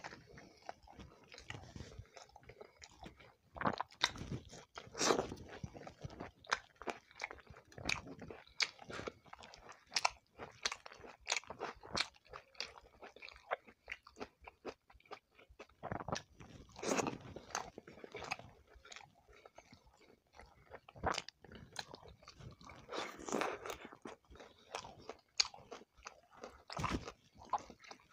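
Close-miked eating sounds: a person chewing and biting into roti and shrimp curry, with irregular wet smacking and crunchy clicks throughout.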